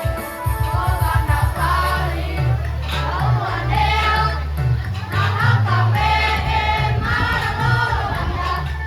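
Children's choir singing in unison over an accompaniment with a heavy bass line that moves in steady blocks of notes.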